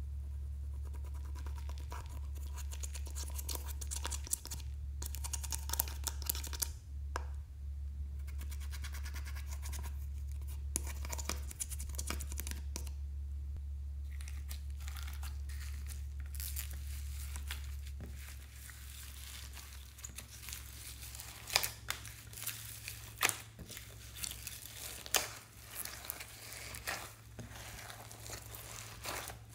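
Slime being worked by hand: first a small plastic spatula scrapes and taps at eyeshadow in a palette pan over a dish of slime, with a steady low hum underneath. About two-thirds of the way through, the hum stops, and hands knead thick slime loaded with foam beads and glitter, giving sticky squishing with sharp clicks and pops every second or so.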